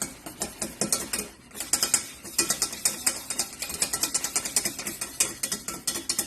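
Spoon or whisk scraping fast and steadily around a saucepan as evaporated milk with cornstarch and garlic is stirred over the heat to thicken, keeping it from sticking to the bottom: quick scrapes and clicks, about five a second.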